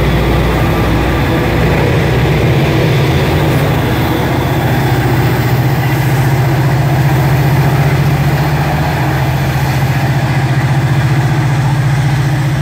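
Two Norfolk Southern SD40E pusher locomotives' EMD diesel engines working hard while shoving a freight train, passing close by as one loud, steady, deep drone with a fast throb.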